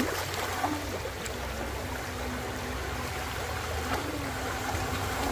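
Radio-controlled jet boat's motor running at a distance, a steady hum that wavers slightly in pitch, over the rush of water.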